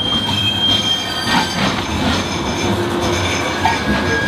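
Bombardier M5000 Metrolink tram running on its rails, its steel wheels squealing in a high steady tone for the first second or so, then in fainter shifting squeals over a steady rumble.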